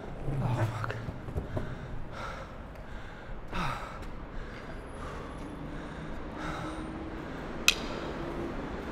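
A man breathing hard, a heavy breath about once a second, over the steady low rumble of longboard wheels rolling on pavement. One sharp click near the end.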